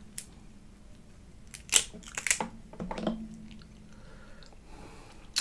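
Cooked Dungeness crab shell being cracked and picked apart by hand: a few sharp cracks, the loudest about two seconds in.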